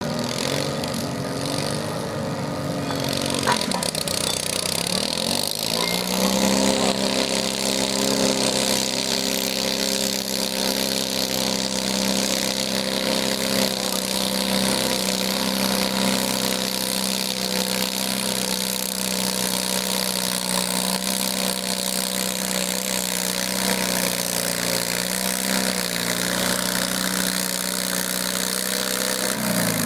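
Garden tractor engine revving up about five seconds in, then running at steady high revs under load as it pulls a weight-transfer sled down the track, dropping off right at the end.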